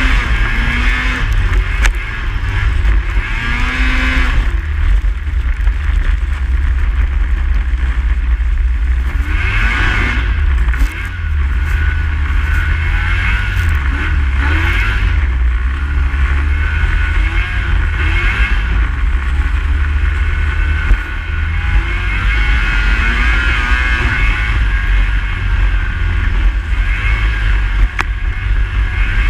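Snowmobile engine running under way, its pitch rising and falling with the throttle.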